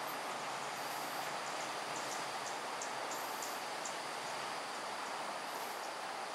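Steady hum of distant road traffic, with a high insect buzz coming and going every couple of seconds and a run of faint quick ticks between about one and a half and four seconds in.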